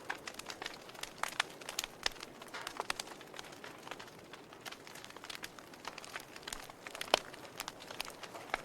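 Wood fire in a fireplace crackling: irregular sharp pops and snaps over a soft steady hiss, with one louder pop about seven seconds in.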